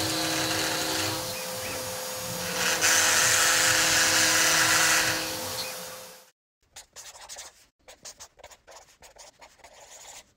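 CNC router spindle with a one-flute upcut end mill at 10,000 RPM running with a steady whine and cutting epoxy, loudest for about two seconds in the middle of its run, then fading out a little past halfway. After that, a run of short scratchy strokes like a pen writing.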